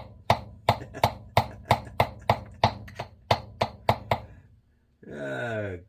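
Quick, even hammer taps, about three a second, on the dented metal cover of a Tru Temper 1-2-3 spincast reel, knocking the dent back out. The tapping stops about four and a half seconds in.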